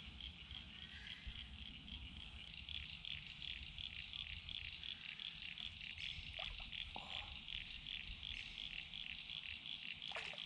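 Frogs calling: a faint, high, even pulsing chirp, about three to four a second.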